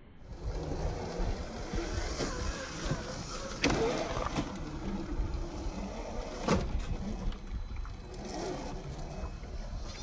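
RC rock crawlers, a Traxxas TRX-4 Defender and an Axial SCX10 III Jeep, working over boulders: a steady low rumble of running gear and tyres on stone, with two sharp knocks about a third and two thirds of the way in.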